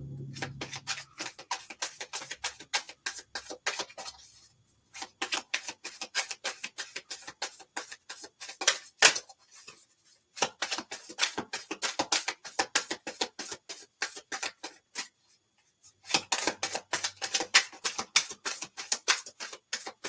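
A deck of tarot cards being shuffled by hand: rapid runs of crisp card clicks in four stretches, broken by short pauses.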